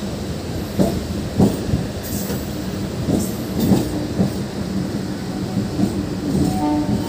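MEMU electric train rolling along the track, heard from the coach door: a steady low hum of running with irregular knocks of wheels over rail joints and points, and a brief higher squeal near the end.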